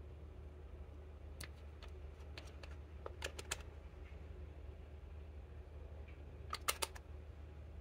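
Light clicks and taps of small makeup containers being handled, a nail polish bottle and its brush cap among them. There are a few scattered clicks, a quick run of them about three seconds in and another run near the end, over a steady low hum.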